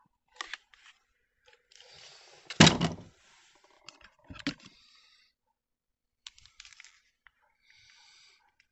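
Plastic power tools being handled in a hard plastic tool case: scattered clicks and rattles, with one heavy thunk about two and a half seconds in.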